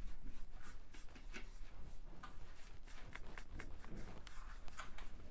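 Paintbrush stroking paint onto a laser-cut piece: an irregular run of short, soft scratchy strokes, a few a second.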